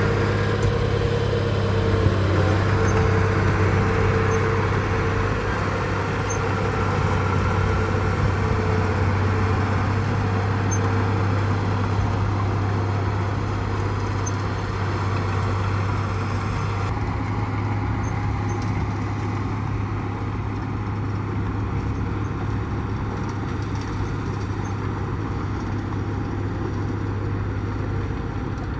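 Heavy diesel engines of dump trucks running steadily, a continuous low engine drone with no pauses.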